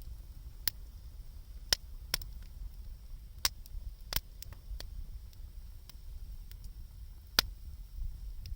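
Wood fire crackling: scattered sharp pops and snaps at irregular intervals, the loudest a little under two seconds in and again near the end, over a low steady rumble.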